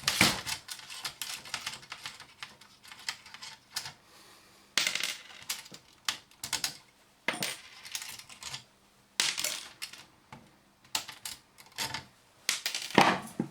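Screwdriver working small metal screws out of a satellite receiver's circuit board: irregular metallic clicks and clinks, with a few short, sharper clattering bursts.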